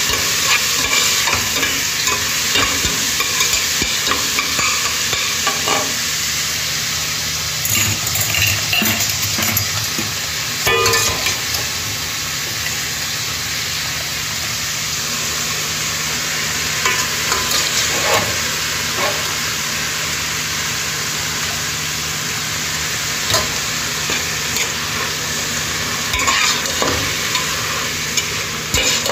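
Food sizzling steadily as it fries in a pan, with a cooking utensil scraping and knocking against the pan now and then as it is stirred.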